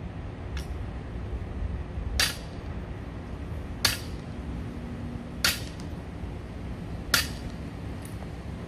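A loaded barbell with bumper plates clanking sharply four times, about every second and a half, once per deadlift rep, over a steady low background hum.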